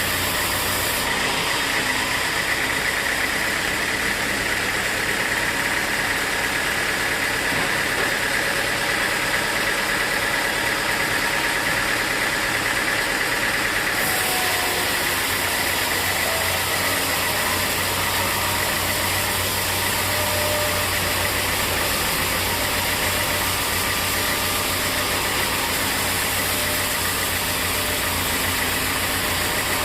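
Sawmill machinery running steadily: a continuous engine-like mechanical noise with a steady high whine over it. The sound changes abruptly about a second in and again about halfway through.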